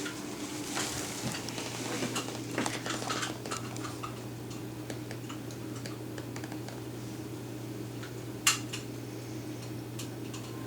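Small metal clinks, clicks and rattles of hand tools and parts being handled during dishwasher installation work, busiest in the first few seconds, with one sharp click about eight and a half seconds in, over a steady low hum.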